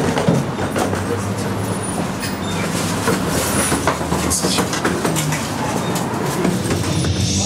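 Camera handling noise: a rumbling, rattling noise with many clicks over a steady low hum while the camera is carried along.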